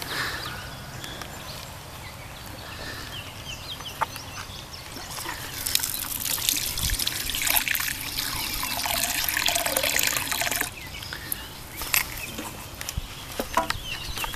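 Water trickling and splashing as the ridged bowl of a small gold centrifuge is rinsed out. It is quieter with a few small clicks at first, then runs louder for about five seconds from the middle and cuts off suddenly.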